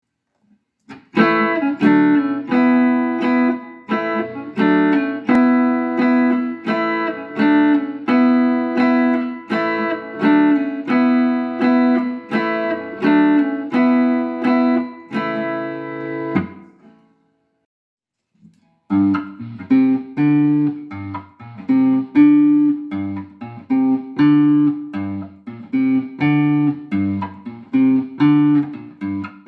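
Guitar strumming chords in a steady rhythm. It stops about sixteen seconds in and is silent for about two seconds, then starts again with a different, busier strumming pattern.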